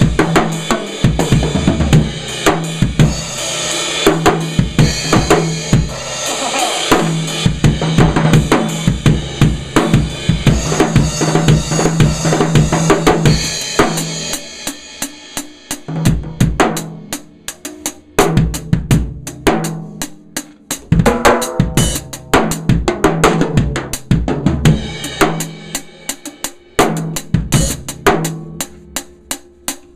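Drum kit played with a ddrum Journeyman 13x7 snare drum: a busy pattern of snare, bass drum and cymbals. About halfway through it thins to sparser, separate hits with less cymbal.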